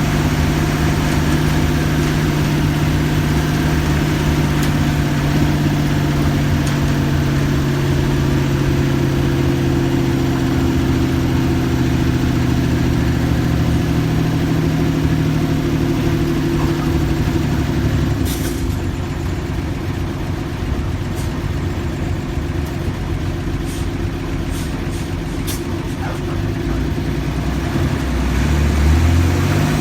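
Diesel engine of a Mercedes-Benz OF-1315 bus running steadily. Its even note gives way to a rougher sound with a few clicks about two-thirds of the way through, and the pitch rises near the end as it is revved.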